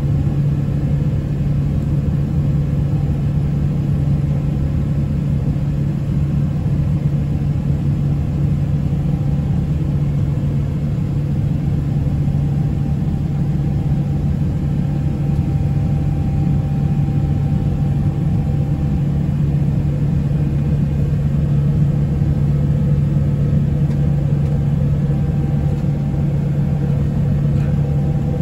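Steady cabin noise inside a Boeing 777-300ER climbing out after takeoff: its two GE90-115B turbofans at climb power and the rush of air past the fuselage, a loud even drone with a strong low hum.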